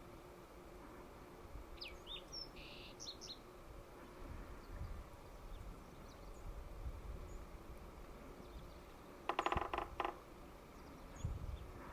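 Red-breasted sapsucker drumming: a quick roll of sharp taps lasting under a second, near the end. A few short high bird chirps come about two seconds in.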